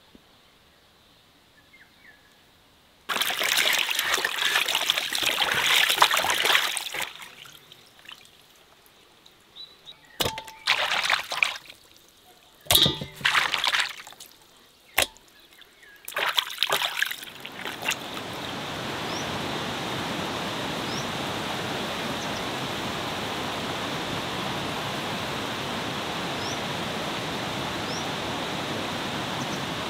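Water splashing and sloshing in a basin as raw quails are washed by hand, in a long burst from about 3 seconds and several short splashes after it. From about 18 seconds a steady, even rushing noise takes over.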